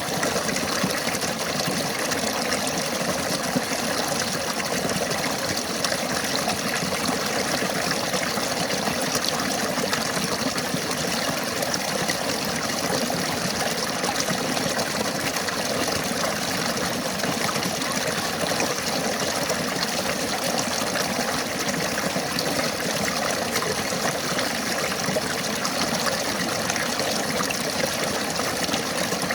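River water flowing over rocks, a steady rushing and babbling with no breaks.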